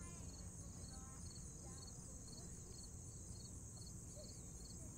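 Insects trilling steadily in a high, even band, with a softer chirp pulsing a few times a second, and a few faint chirps scattered through it.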